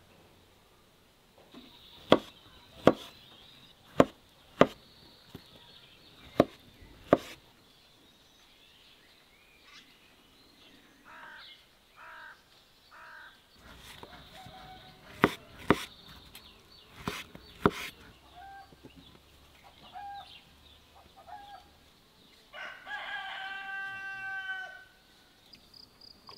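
A knife knocking sharply on a wooden cutting board about ten times, mostly in pairs, with chickens clucking between the knocks. Near the end a rooster crows once for about two seconds.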